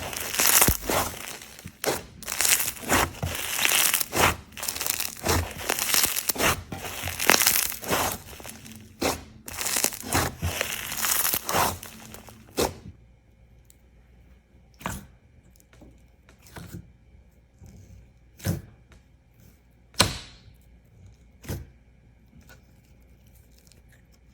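Slime being squeezed and pressed by hand, giving dense crackling, crunchy pops. About halfway through, the crackling stops, and only scattered single pops remain, about one a second.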